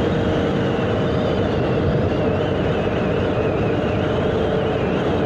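Aprilia 150 scooter's single-cylinder engine running steadily at cruising speed on the open road, mixed with even wind and road noise and a steady hum.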